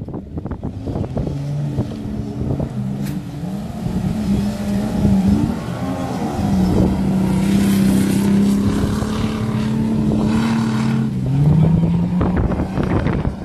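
An off-road 4x4's engine revving, its pitch rising and falling over the first few seconds, then held at steady high revs for several seconds before dipping and climbing again near the end. Wind buffets the microphone.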